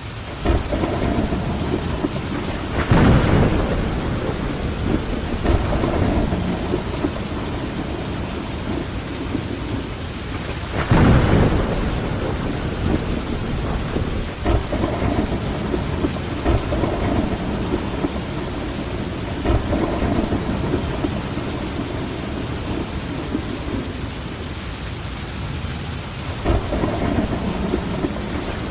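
Steady rain falling against a window, with louder low rumbles of thunder rolling through a few seconds in, again about eleven seconds in, and at the very end.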